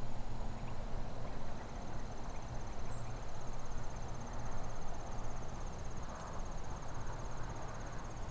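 Insect trilling: a steady, rapidly pulsed high note that starts about a second in and keeps going. Under it is a steady low background rumble.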